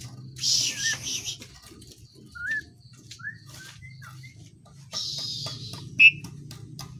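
Asian pied starling (jalak suren) calling: harsh, hissing chatter near the start and again about five seconds in, with short slurred whistles in between. A brief sharp high note about six seconds in is the loudest sound.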